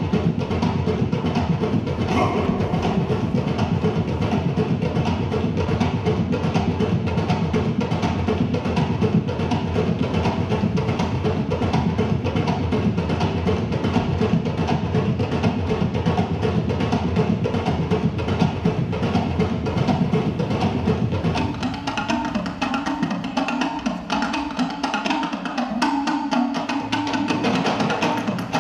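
Background music with busy percussion, a wood-block-like beat over a steady low drum pattern; the bass drops away about twenty-two seconds in.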